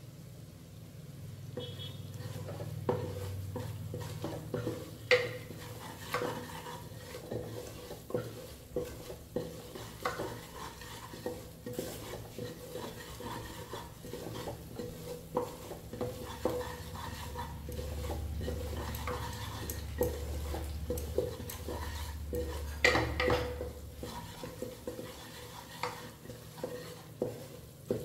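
A metal spoon stirring food in a pan, frying, with repeated clinks and scrapes against the metal about once or twice a second.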